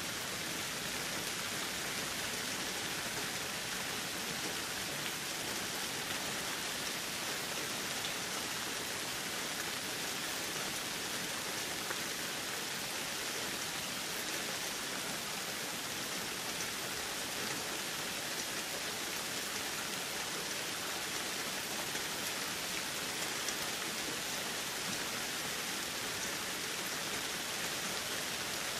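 Rain falling steadily, an even hiss with no breaks or thunderclaps.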